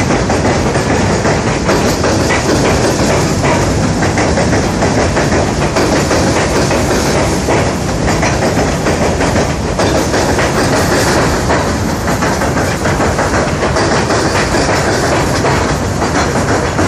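Freight cars, tank cars and covered hoppers, rolling over a steel-girder trestle bridge, heard from just beneath the deck: a loud, steady clatter of wheels over the rail joints.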